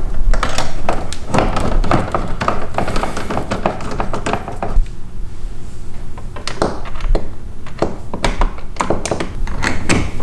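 Screwdriver driving T20 Torx screws into an E46 M3's plastic door card: a busy run of small clicks and taps with a few dull knocks against the panel.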